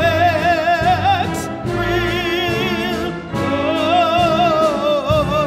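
Operatic female voice singing long held notes with a wide vibrato over a small orchestra, in two phrases with a short instrumental gap between them.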